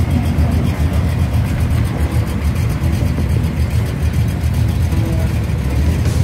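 V8 engines of classic American muscle cars rumbling at low revs as the cars drive slowly past.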